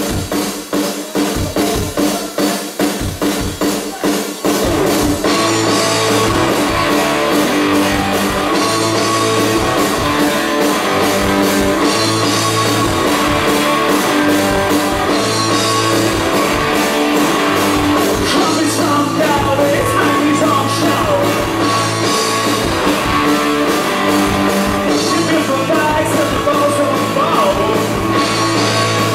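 Live rock band with electric guitars, bass and drum kit playing a song. It opens with about five seconds of sharp, evenly spaced beats, then the full band comes in and plays steadily, with a singer's voice over it.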